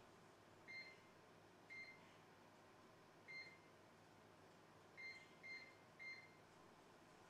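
An electric oven's control panel beeps as its buttons are pressed to set the timer. There are six short single-pitch beeps: three spaced one to two seconds apart, then three in quick succession.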